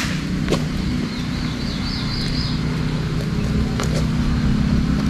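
Steady engine-like hum that steps up slightly in pitch about three seconds in, with a few sharp clicks of a knife working into a durian's spiky husk and a brief high warble about two seconds in.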